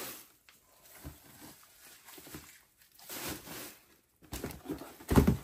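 Shredded paper packing rustling and crackling as it is pushed by hand back into a wooden crate, in irregular handfuls, with a loud thump a little after five seconds in.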